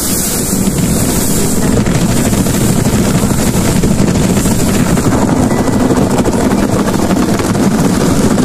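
Automatic car wash's rotating brush whirring over the car, a loud steady rush heard from inside the cabin, growing a little louder about two seconds in.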